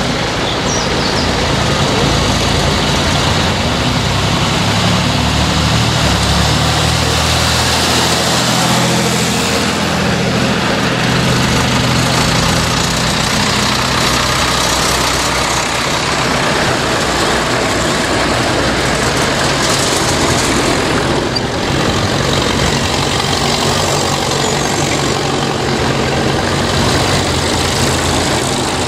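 A procession of tractors driving past one after another, engines running. The engine notes grow loudest in the middle, as a Ford 6610 with its four-cylinder diesel passes close by.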